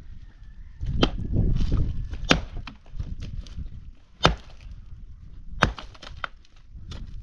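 Axe chopping branches of firewood on the ground: about five sharp strikes into wood, spaced a second or two apart, with crunching and rustling of wood and gravel between them.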